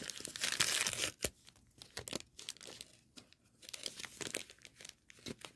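Toy packaging being torn open and crinkled by hand: a dense crinkling tear for about the first second, then scattered crackles as the wrapping is worked at.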